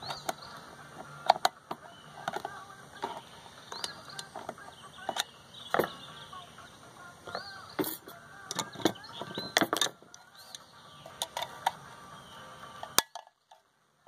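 Irregular metallic clicks, taps and scrapes of a screwdriver prying at a microwave magnetron's sheet-steel casing, with tools set down on a plywood bench.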